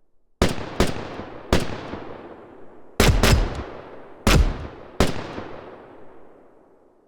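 Cinematic designed gunshot sound effects: seven sharp, heavy shots in irregular succession, each with a long echoing tail that fades away, the deepest and loudest coming about three and four seconds in.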